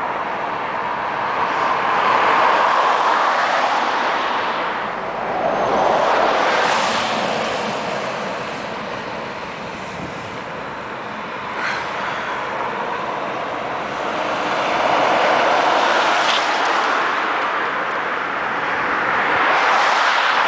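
Road traffic noise heard from inside a moving vehicle: a steady rush of tyres and engines that swells and fades about four times as vehicles pass.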